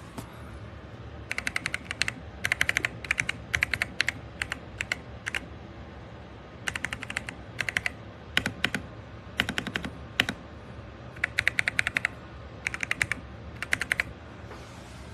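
Typing on an RK Royal Kludge R75 gasket-mounted 75% mechanical keyboard: bursts of quick keystrokes, with a short pause about six seconds in.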